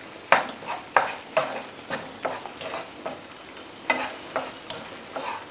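Wooden spatula stirring and scraping onion and ginger-garlic masala in a non-stick kadai, with irregular strokes about every half second over a steady sizzle of frying in oil.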